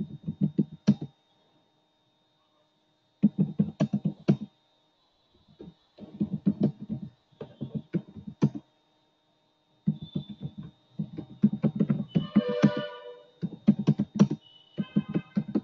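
Computer keyboard being typed on in quick bursts of keystrokes, with short pauses between them.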